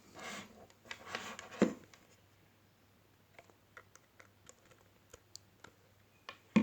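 Rustling and scraping as a headphone plug and adapter are handled and pushed into a camera's jack, then a run of light, irregular clicks over the last few seconds.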